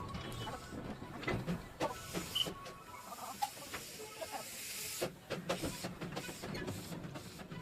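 Darjeeling Himalayan Railway toy train running, with irregular clicks and clanks and a hiss for a couple of seconds in the middle.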